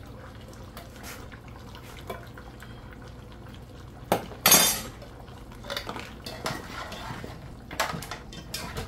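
Tinned broad beans tipped from a can into a metal stew pot, then a spoon stirring and scraping against the pot, with small clicks and knocks throughout. The loudest moment is a sharp knock and short clatter about four seconds in.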